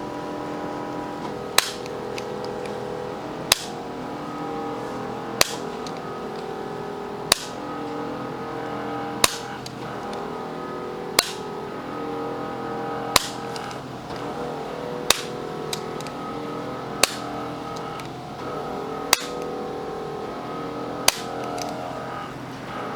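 Chiropractic activator adjusting instrument firing: a sharp spring-loaded click about every two seconds, eleven in all, over background music with long held notes.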